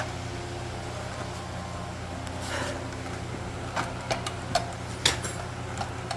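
Steady low machine hum, with a brief rustle about two and a half seconds in and a handful of sharp clicks and knocks a little later.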